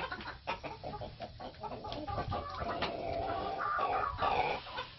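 Chickens clucking.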